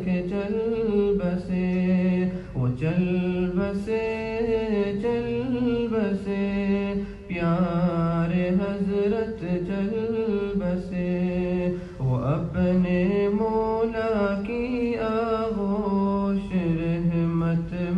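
A nasheed sung by a single male voice without instruments, in long, wavering held notes with short breaks between phrases.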